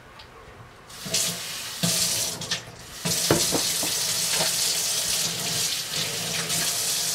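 Kitchen tap running into a stainless steel sink while plastic filter-jug parts are rinsed under the stream. The water starts about a second in, breaks off briefly near the middle, then runs steadily, with a few knocks of the plastic parts.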